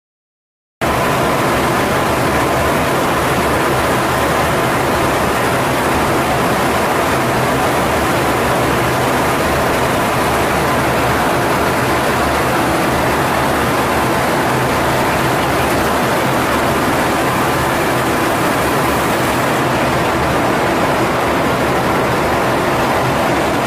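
Steady cockpit noise of a U.S. Air Force RC-135 four-engine jet in flight: a loud, even rush of airflow and engine noise with a faint steady hum, starting suddenly about a second in.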